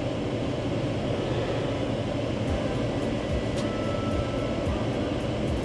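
Steady low hum of a running truck, with faint regular ticking starting about halfway through.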